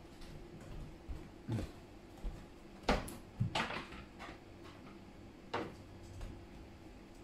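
Footsteps and a handful of short knocks and clatters from things being picked up and set down on a kitchen counter, the sharpest about three seconds in, with a quick cluster just after.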